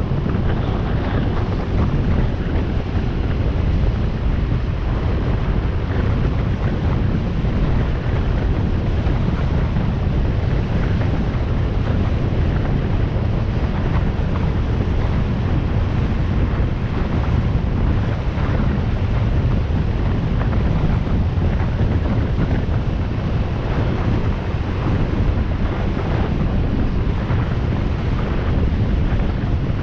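Wind rushing over the microphone of a camera on a moving motorcycle: a steady low rumble that does not let up.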